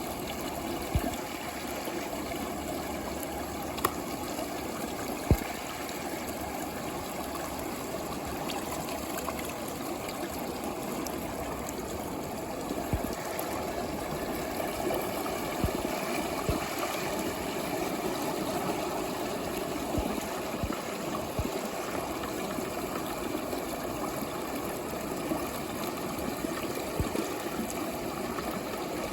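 Water swirling and bubbling in a plastic tube, a steady rush and gurgle of moving water, with a few short sharp clicks scattered through it.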